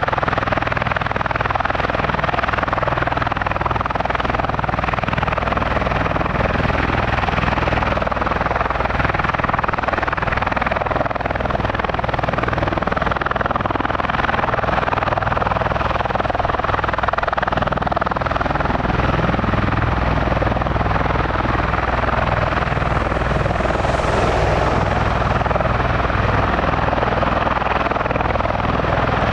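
Bell Boeing V-22 Osprey tiltrotor running, its Rolls-Royce T406 turboshaft engines and proprotors giving a steady rushing noise over a low, even hum that holds constant in pitch and loudness.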